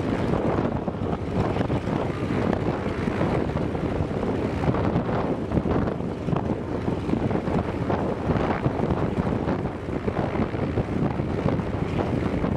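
Antonov An-2's nine-cylinder radial engine running steadily on the ground, a dense, even, rapidly pulsing drone that holds at the same level throughout.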